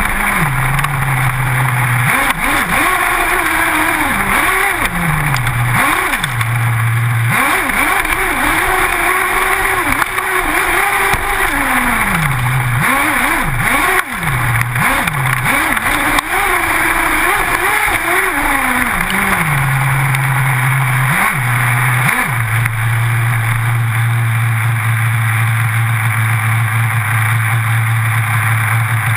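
Onboard sound of an HPI Trophy 4.6 nitro buggy's Picco .28 engine, revving up and down again and again as the car drives over gravel, with tyre and gravel noise. From about 22 seconds in it settles to a steady idle.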